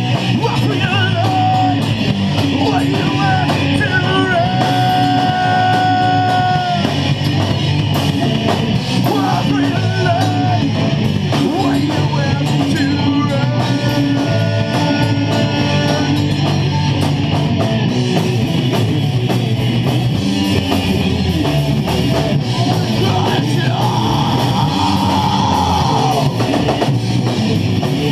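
Heavy metal band playing live: distorted electric guitars, bass and drum kit, with some singing.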